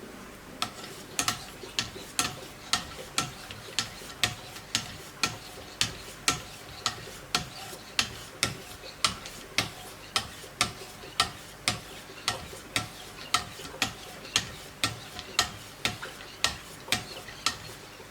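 Hand strokes of Wicked Edge sharpening stones along a knife blade, about two a second, each a short sharp scrape.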